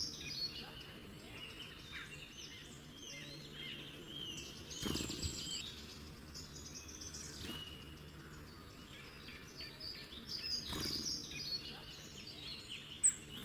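Mixed birdsong: several birds chirping and trilling at once, with calls overlapping throughout, over a faint steady low background.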